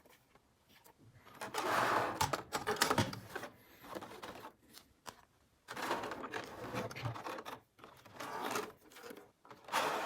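Small plastic miniature toy kitchen pieces being handled and unpacked: quick clicks, taps and rustling in two bursts, with a pause of a couple of seconds between them.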